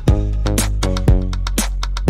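Upbeat electronic background music with a bass line and a steady drum beat, about two hits a second.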